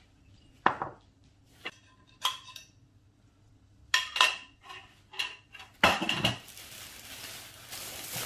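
Plates and cutlery clinking and knocking as a dish is plated, about a dozen sharp strikes, several with a brief ringing tone. A rustling noise follows for the last couple of seconds.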